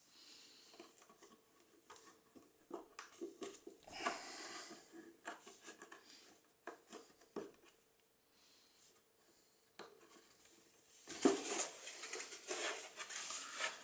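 Workbench handling noise: scattered taps, clicks and short scrapes of tools and a plastic part being handled, with a faint steady hum, turning into louder rubbing or scraping in the last few seconds.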